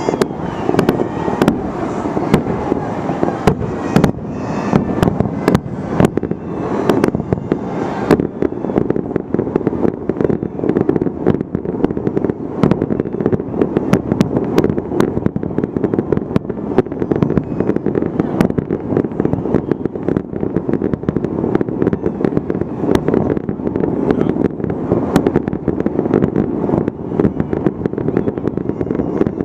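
Fireworks display going off as a dense, unbroken barrage: rapid bangs and crackling over a continuous rumble.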